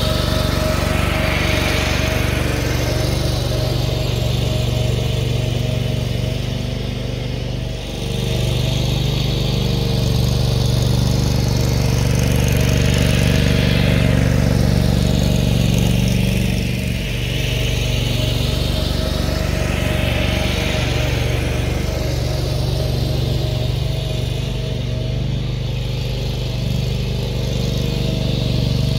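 Engine of a Toro 30-inch stand-on core aerator running steadily as the machine is driven across a lawn, with a brief dip in level about eight seconds in.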